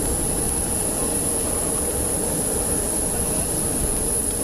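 Jet aircraft engine running steadily on the ground: a constant rumble with a steady high whine.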